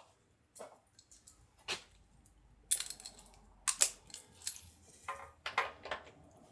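Metal hand tools clinking and clacking: a socket, extension and ratchet being handled and fitted, in a string of irregular sharp clinks with a few louder knocks in the middle.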